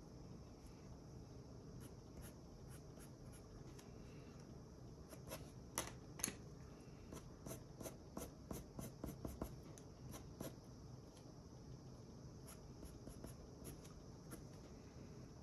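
Colored pencil scratching on drawing paper in short, light strokes, with two sharper clicks about six seconds in and a run of quick hatching strokes after them.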